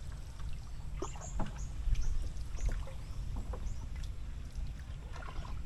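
Small rowing boat moving along a still canal: oar strokes knocking and dipping in the water over a low steady rumble. Birds chirp in the trees, with a run of short high chirps between about one and three seconds in.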